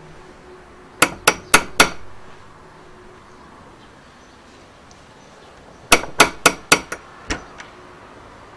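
Knocking on a wooden front door: four sharp raps, a pause of about four seconds, then five more, followed by a single fainter click as the door is opened.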